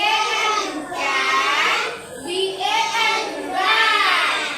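A child's high voice in a sing-song, drawing out a few short syllables one after another, as in a phonics chant of three-letter words.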